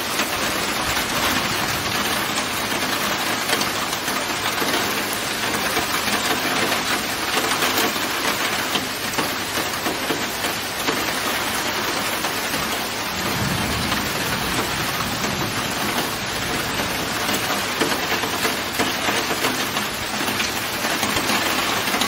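Heavy rain falling steadily in a hiss of dense drops. About two-thirds of the way through, a low rumble swells for a couple of seconds beneath the rain.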